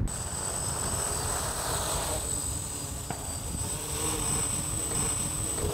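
Quadcopter's four electric motors and propellers spinning, a steady buzzing whine with a thin high tone held throughout.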